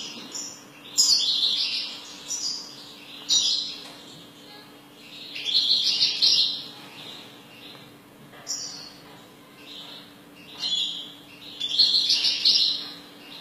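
European goldfinch singing: short bursts of rapid twittering song, repeated every second or two with pauses, over a faint steady low hum.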